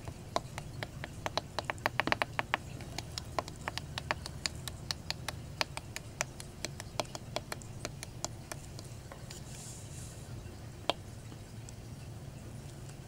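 A run of light, irregular clicks and taps, quickest about two seconds in and thinning out after about eight seconds, with one last sharp click near the end, over a low steady hum.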